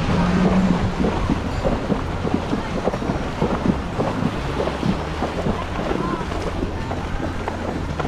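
Horse wading through shallow water, its legs splashing in a quick, uneven stream, with wind rumbling on the microphone.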